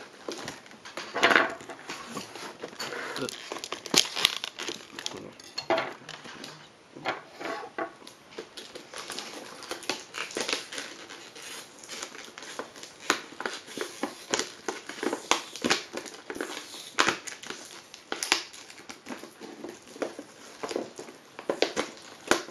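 Plastic packaging crinkling and crackling as it is handled and opened, in a dense, irregular run of small clicks and crackles.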